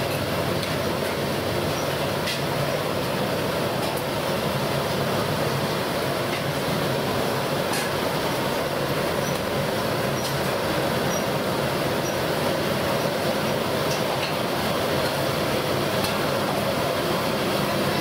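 Vadas deep-frying in a large kadai of hot oil: a steady, dense sizzle of bubbling oil, with a low steady rumble beneath it.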